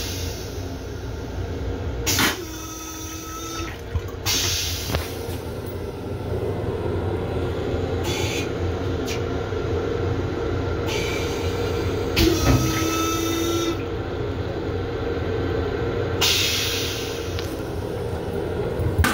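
Commuter railcar toilet flushing: repeated bursts of hissing rinse water, a few seconds apart, some with a brief whining tone from the valve. They sit over a steady low rumble, and there is a knock near the end.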